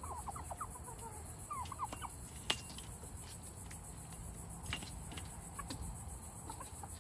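Domestic turkeys giving a quick run of short, high calls for about the first two seconds, followed by a sharp click and a few fainter clicks.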